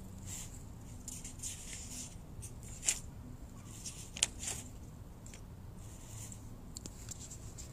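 Faint handling noise from a phone held close to its microphone: soft rustles and two sharp clicks, about three and four seconds in, over a low hum.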